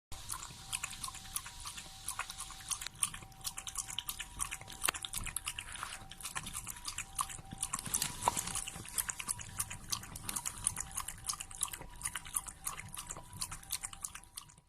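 Shiba Inu eating noisily: a dense run of quick wet smacking and clicking chews and licks, with a faint steady hum behind.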